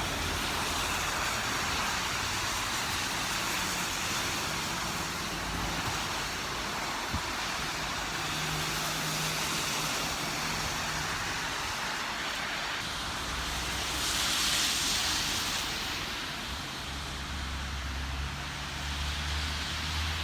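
City street traffic: a steady rush of road noise with vehicles going by, one passing a little louder about two-thirds of the way in.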